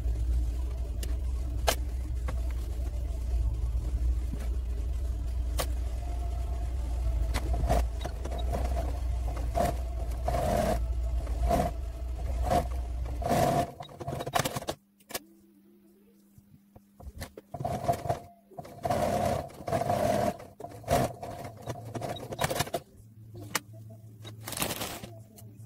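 Sewing machine running steadily with a low hum and a fast rattle of stitching as lace is fed under the needle. A little past halfway it stops, then starts again in several short bursts.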